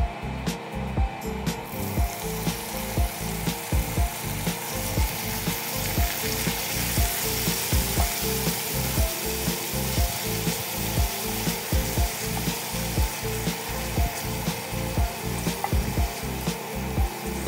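Chopped garlic frying in hot oil in a cast-iron skillet, sizzling steadily from about a second and a half in. Background music with a steady beat plays underneath.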